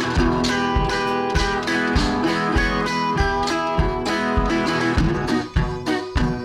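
Background music: strummed acoustic guitar in a country style, with a steady beat of about two strokes a second.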